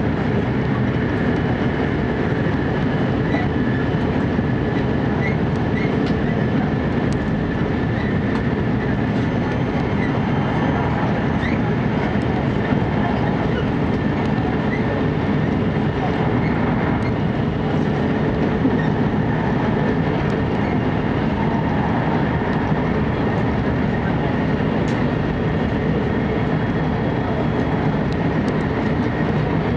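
Steady running noise of a JR East E4 series Max Shinkansen at speed, heard inside the passenger cabin: a continuous rumble of wheels and air with a faint steady high whine over it.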